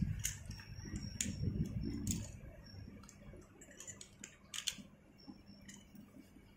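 Scattered sharp metallic clicks and clinks of carabiners and rope-access hardware being handled and clipped, a few irregular ones with a cluster about four and a half seconds in, over low rustling of rope, harness and coveralls that dies away after about two seconds.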